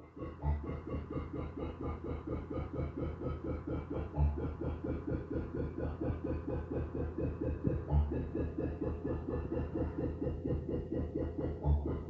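Music with a fast, even pulse and a deep bass hit about every four seconds, four hits in all.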